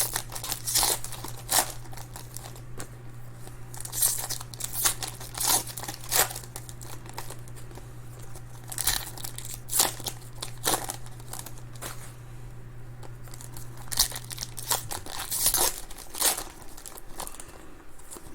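Foil wrappers of trading card packs being torn open and crinkled by hand, in irregular sharp crackles. A steady low hum runs underneath and stops about fifteen seconds in.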